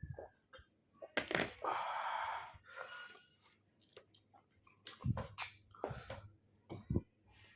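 Close-miked eating noises: lip smacks and mouth clicks, a long breathy rush about two seconds in, and a few short low thumps later on.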